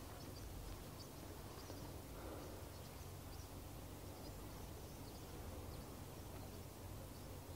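Faint outdoor ambience: scattered short, high bird chirps over a steady low rumble.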